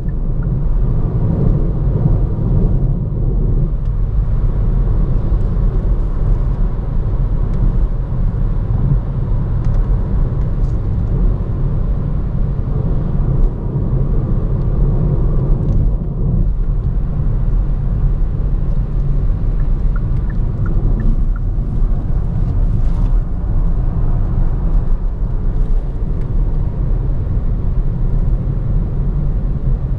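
Steady in-cabin rumble of a Hyundai i30 Fastback N-Line with the 1.4 T-GDi turbo four-cylinder cruising at about 100 km/h: low engine hum mixed with tyre and road noise.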